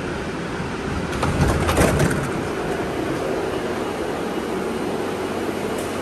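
Steady hum of a Barcelona Metro Line 11 500-series light metro train standing at a station platform. About a second and a half in there is a brief clatter of knocks as the passenger doors open.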